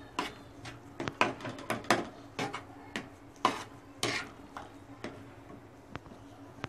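A metal spatula scraping and clicking against a flat metal tawa as a thick mash of peas and potato is stirred and pressed. The strokes come irregularly, thick for the first four seconds or so, then thinning out.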